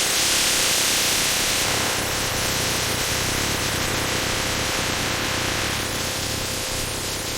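Steady hissing noise with a faint steady hum underneath, fading slightly towards the end.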